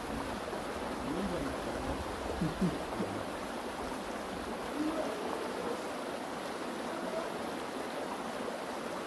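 A steady rush of flowing water, with faint voices now and then.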